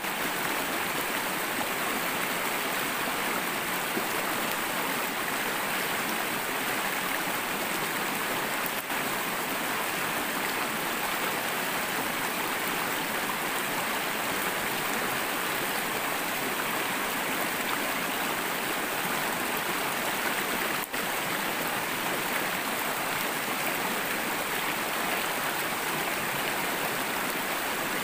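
Shallow river rushing steadily over rocks and small rapids.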